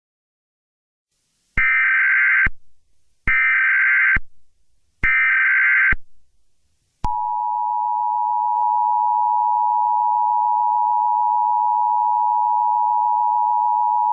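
Emergency Alert System tones: three short bursts of SAME digital header data, each about a second long with a short gap between, then about seven seconds in the two-tone attention signal starts and holds steady.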